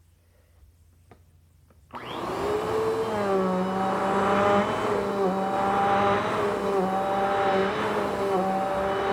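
Vacuum cleaner switched on about two seconds in, its motor spinning up with a rising whine and then running steadily, the pitch dipping briefly now and then.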